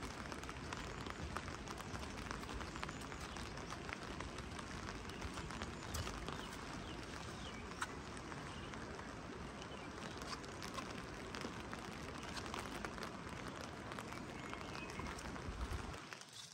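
Steady rain falling, an even hiss dotted with many small drop ticks. It drops away briefly near the end.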